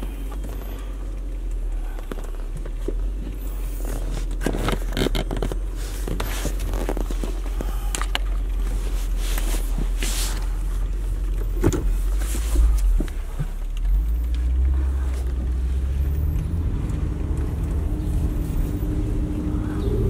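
Lexus SC430's 4.3-litre V8, fitted with an Injen short ram intake, running at idle under scattered knocks and rustles from the phone being handled. In the last third the engine note rises and grows louder as the car pulls away.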